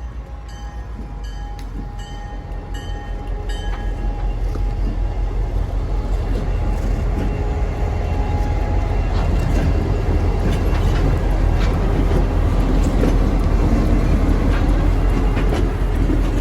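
Mississippi Export Railroad diesel locomotives running light, without cars, approaching and passing; their low engine rumble grows louder over the first ten seconds and then holds. A bell rings about twice a second for the first four seconds.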